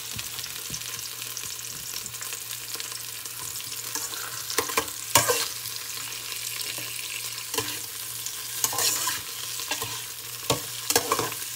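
Onions and tomato wedges sizzling in hot oil in an aluminium pot while a metal turner stirs them, steady frying hiss with several sharp scrapes and knocks of the turner against the pot, the loudest about five seconds in.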